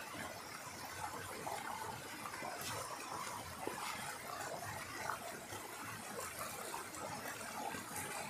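Mountain stream rushing steadily over rocks in a small cascade, with a few light clicks a few seconds in.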